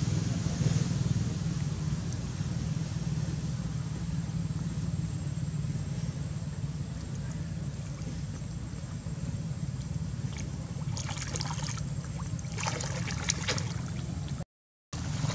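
Water sloshing and splashing as a swimming macaque paddles with her infant on her back, in two short bursts in the last third, over a steady low rumble. The sound drops out completely for a moment near the end.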